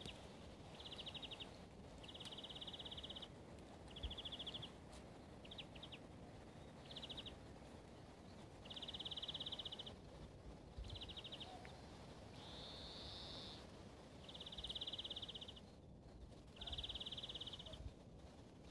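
Small creature chirping: short, high trills of rapid pulses at one pitch, each half a second to a second long, repeated every second or two.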